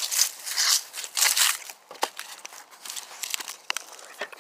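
Irregular rustling, crunching and crackling scuffs from someone clambering over a fence with a phone held in one hand, with a few sharp clicks among them.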